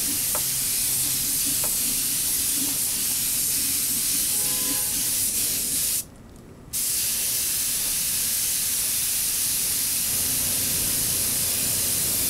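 Gravity-feed compressed-air spray gun hissing steadily as it sprays clear coat onto a motorcycle wheel, cutting off briefly about six seconds in when the trigger is let go, then starting again.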